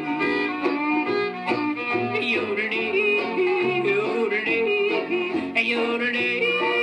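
Old-time country song playing back from a record, with fiddle and string band under a wordless yodeling vocal.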